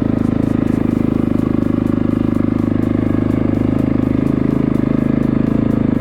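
A 2024 Yamaha YZ250FX's 250cc four-stroke single-cylinder engine idles steadily on choke just after a cold start.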